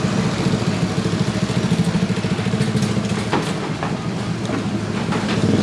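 A small vehicle engine running steadily, with a rapid low pulse.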